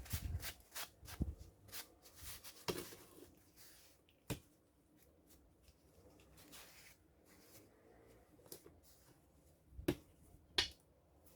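Light clicks and taps of objects being handled and set down on a work surface. There is a quick run of them in the first few seconds, then scattered single clicks, with two sharper ones close together near the end.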